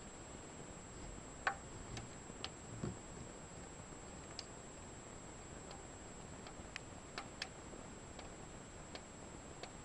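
Sparse, irregular light clicks and taps, with a few soft knocks about one and a half to three seconds in, from parts of a timing belt tensioner system being moved and handled by hand.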